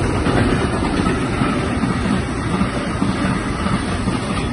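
Container wagons of a freight train rolling past, a steady loud rumble of steel wheels on the rails.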